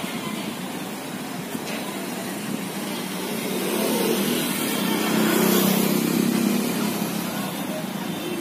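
A motor vehicle's engine passes on the street, growing louder to a peak about five to six seconds in and then fading, over steady traffic noise.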